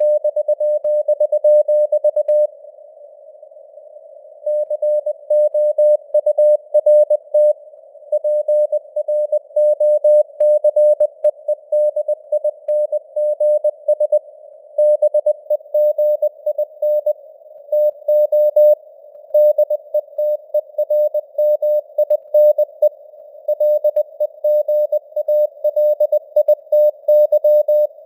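Morse code (CW) sent at 20 words per minute: a single tone of about 600 Hz keyed on and off in quick dots and dashes, over a narrow band of simulated radio hiss. There is a pause of about two seconds between words near the start.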